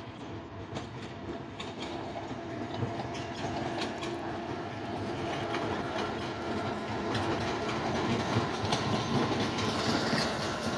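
A train rolling past with its wheels clicking over rail joints, getting steadily louder as it comes closer.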